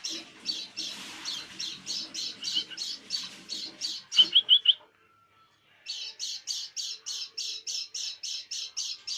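Pet white-eye (pleci) giving a fast, even string of high, harsh call notes, about four a second, the unusual call its owner says it makes every evening. Three louder rising notes come about four seconds in, the bird stops for about a second, then the string resumes.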